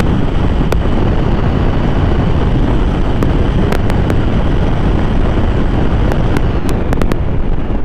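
A steady rush of wind over the microphone, mixed with the single-cylinder engine of a Honda PCX 160 scooter held at full throttle at its top speed of about 113 km/h. A few light clicks sound through it.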